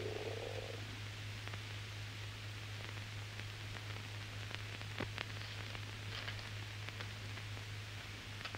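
Old film soundtrack hiss with a steady low hum. A stomach gurgle trails off in the first second, and a few faint crackles of newspaper pages being handled come near the middle.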